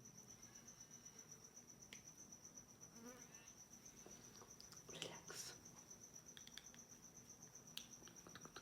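Faint, steady, high-pitched pulsing trill of an insect, with a brief soft rustle about five seconds in.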